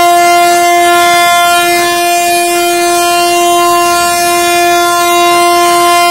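Locomotive horn sounding one long, steady, loud blast on a single note: a train's departure signal as it is flagged off.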